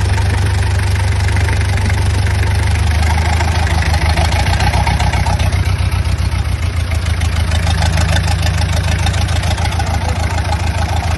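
Mitsubishi 4DR5 four-cylinder diesel engine running steadily on a stand, with a fast, even firing rhythm.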